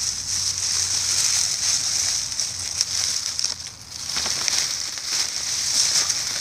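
Dry brown leaves and grass crackling and rustling as hands crumple and press them down into a grow bag, with a brief lull about four seconds in.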